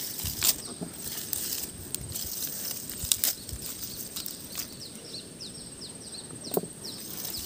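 Outdoor ambience with light rustling and footfalls in dry grass, a few small clicks, and a steady high thin tone. From about four to six seconds in a bird gives a quick run of short, falling chirps.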